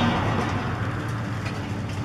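Caterpillar 5080 demolition excavator's diesel engine running steadily as its hydraulic shear bites into a concrete wall, with concrete crumbling and debris falling.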